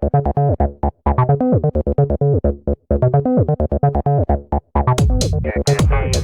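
Electronic background music: a synthesizer plays short, quick keyboard notes in a rhythmic pattern, and a fuller dance beat comes back in near the end.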